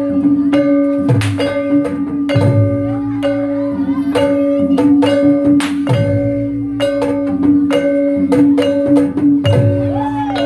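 Banyumasan gamelan music accompanying an ebeg dance: struck pitched metal keys in a steady repeating pattern over a held low tone, with sharp accents and deep drum strokes every second or two.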